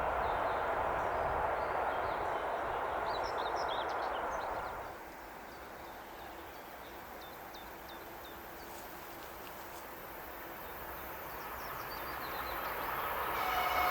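Passing train's running noise, cutting off suddenly about five seconds in, leaving birds chirping; from about eleven seconds the next train's noise rises as it approaches, with a steady hum and hiss near the end.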